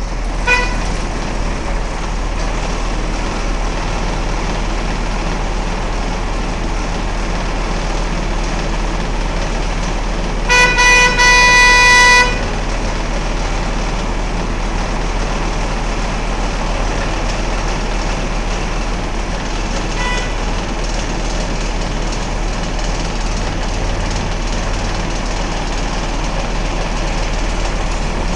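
Truck engine running steadily, heard from inside the cab. Over it a vehicle horn sounds one steady note: a short toot at the start, a held blast of nearly two seconds about ten seconds in, and a brief, fainter toot about two-thirds of the way through.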